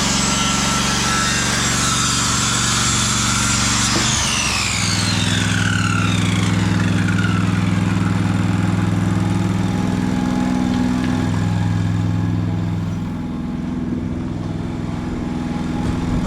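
A power tool's motor runs at a high whine, then is released about four seconds in and winds down, falling in pitch, over a steady low engine hum.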